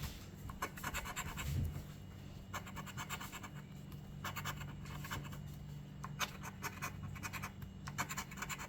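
A coin scratching the latex coating off a lottery scratch-off ticket: quick rasping strokes in short passes of about a second, with brief pauses between.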